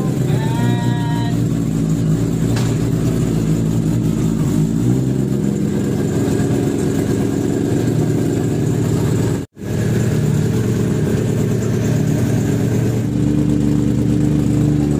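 Kawasaki ZX-10R's inline-four engine idling steadily, its throttle body freshly cleaned. There is a momentary dropout about halfway through.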